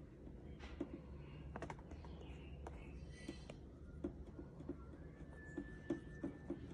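Stylus tapping and stroking on an iPad's glass screen while drawing: irregular light taps, several a second at times. A low steady background hum lies under the taps, and a faint high tone comes in from about five seconds in.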